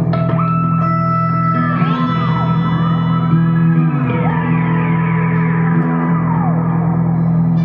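Electric guitar noises run through a loop station over a sustained low drone. The self-oscillating Boss DM2W analogue delay and EHX Pitchfork, swept by an expression pedal, add held tones and tones gliding up and down in arcs. Changing the delay rate while the delay self-oscillates makes the gliding pitch.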